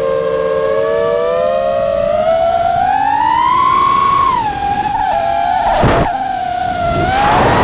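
FPV quadcopter's brushless motors whining, the pitch gliding up over the first four seconds, dropping, then rising and falling again with the throttle. Two short rushes of noise, about six seconds in and near the end.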